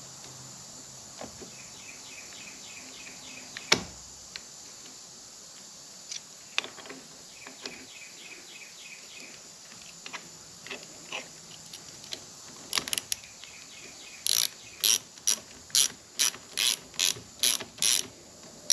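Small hand ratchet clicking as it turns the brake lever pivot pin, held in an easy-out, into the motorcycle's handlebar master cylinder. Light scattered clicks and one sharper click about four seconds in, then near the end a run of loud ratchet clicks about twice a second as the handle is swung back and forth.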